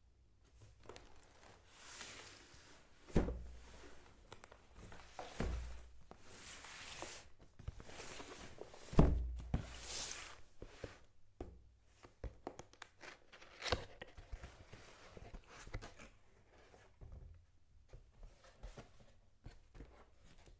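Packaging being handled during an unboxing: irregular rustling and tearing with scattered knocks, and two loud thumps about three and nine seconds in as items are set down or pulled out.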